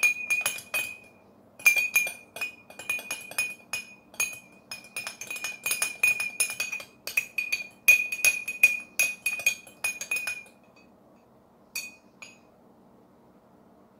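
Two metal spoons stirring in small glass jars, clinking rapidly against the glass with a ringing tone as dishwashing liquid is mixed into oily water. The stirring stops after about ten seconds, and two last clinks follow a little later.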